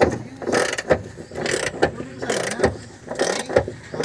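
Hand ratchet with a socket extension clicking in repeated short strokes, several a second and unevenly spaced, as a bolt is turned.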